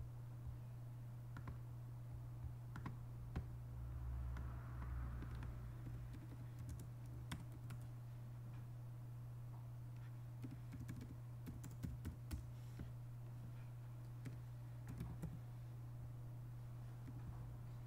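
Faint keystrokes on a computer keyboard: scattered single clicks, bunching into quicker runs about ten to thirteen seconds in and again around fifteen seconds, over a steady low hum.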